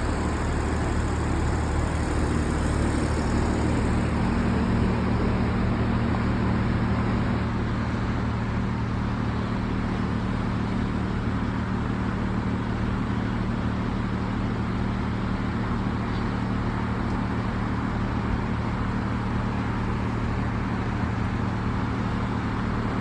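Diesel engine of a LiuGong mini excavator running steadily at a constant speed, a low even hum with no breaking or impacts.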